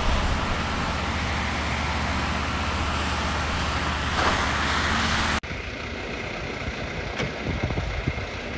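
Fire engine's motor running steadily to drive its pump while a deck monitor jets water: a low hum under a broad hiss. Just past halfway it gives way suddenly to the quieter, lower idling of parked fire trucks.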